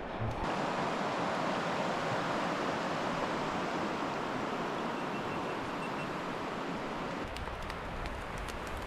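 Steady rush of flowing mountain river water. About seven seconds in the sound shifts, with more low rumble and a few sharp clicks.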